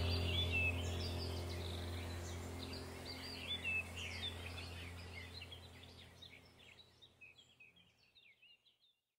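Birds chirping in quick short calls over a steady low hum, the whole sound fading out gradually to silence.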